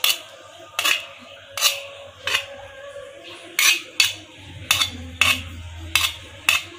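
Stone pestle knocking and grinding in a stone mortar (ulekan and cobek), crushing fried spices and chilies into a paste, with a sharp knock roughly every two-thirds of a second.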